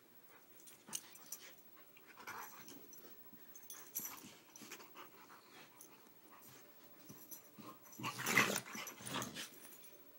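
Siberian husky and Akita puppy play-wrestling: scuffling and play-growling in short scattered bursts, with a louder, longer burst about eight seconds in.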